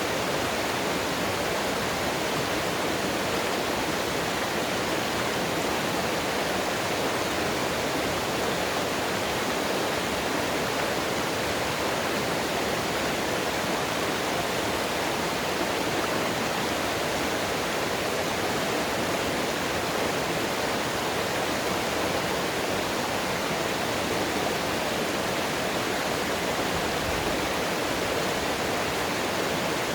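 Mountain stream water rushing, a steady, unchanging rush.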